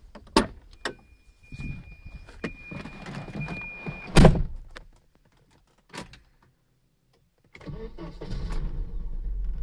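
Car door clicked open and a steady high warning tone sounding for about three seconds, then the door slammed shut about four seconds in. After a short pause the Volvo 780's engine starts and settles into a steady low idle.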